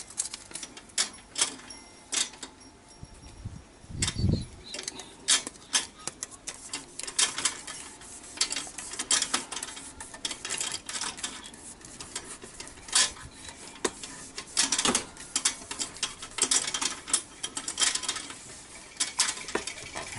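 Hands smoothing and pressing repair tape onto a chrome motorcycle muffler: irregular crinkling, rubbing and small clicks, with a low thump about four seconds in.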